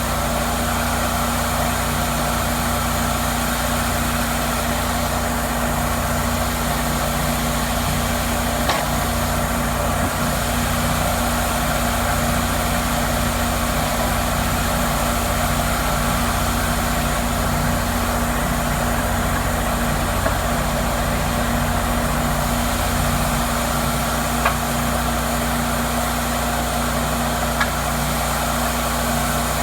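Cook's MP-32 sawmill engine running steadily at an even speed, with a few faint clicks along the way.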